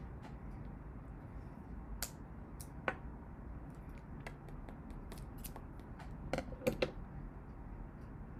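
Small scissors trimming a strip of false eyelashes to length: a few sharp snips spread apart, then a quick cluster of three.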